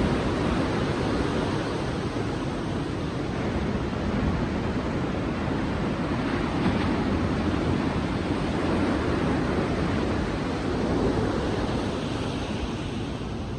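Ocean waves breaking and washing on a beach in a steady surf, with some wind noise on the microphone.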